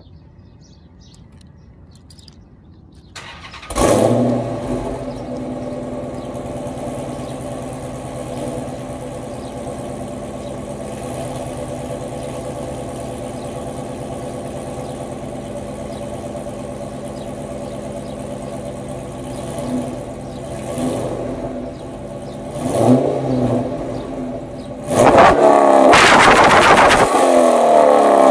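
2012 Dodge Charger R/T's 5.7-litre HEMI V8, breathing through Kooks headers and a Corsa cat-back exhaust, starting about three seconds in with a loud flare and settling to a steady idle. It is blipped a few times a little after twenty seconds, then revved hard and held high near the end.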